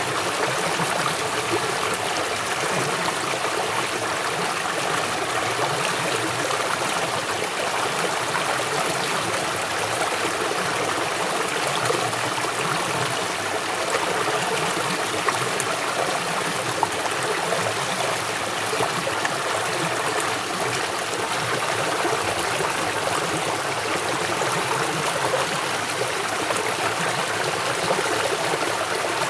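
A river flowing strongly: steady rushing water with a bubbling, gurgling texture.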